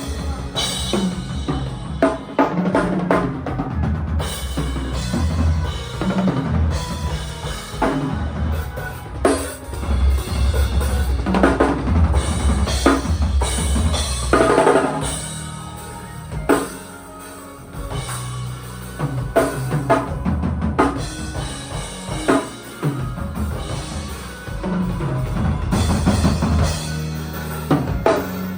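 Live band playing at a sound check, a drum kit hitting hard and often over sustained low bass notes, with a brief softer passage past the middle.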